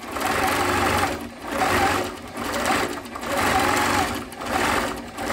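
Longarm quilting machine stitching through a quilt, its needle running fast. The stitching dips briefly about once a second.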